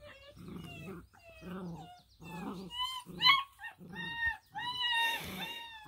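Black and tan coonhound puppies whining and yipping as they wrestle: a string of short, high whines, several a second, with a few longer drawn-out whines in the second half.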